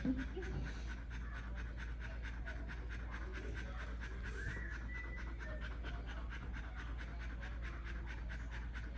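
Dog in labour panting rapidly and evenly, about four to five breaths a second, while whelping her litter.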